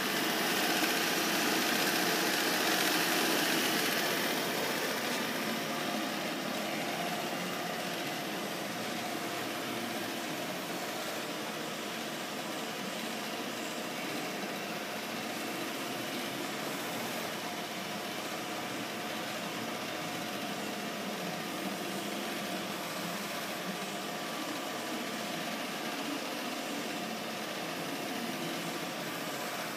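Milltronics VK3 CNC vertical mill running a program, spindle turning at about 2400 RPM in high gear while the head and saddle move. A steady machine running sound with faint hum tones, a little louder for the first few seconds.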